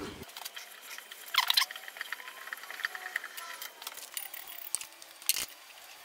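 Threading die in a steel die stock turning on a mild steel rod: short metallic squeaks as the die works the thread, with light clicks and clinks of the stock, the sharpest squeak about a second and a half in.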